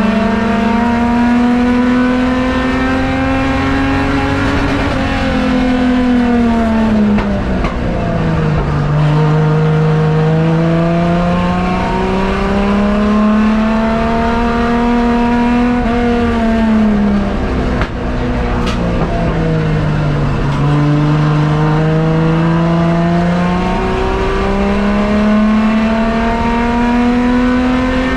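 Car engine running steadily loud, its pitch rising and falling in long smooth sweeps of several seconds each as the revs climb and drop.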